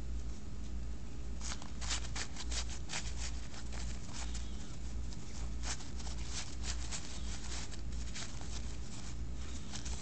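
Thin paper napkin layers crinkling and rustling as fingers pull them apart to fluff out a paper flower: an irregular run of quick crackles that starts about a second and a half in, over a steady low hum.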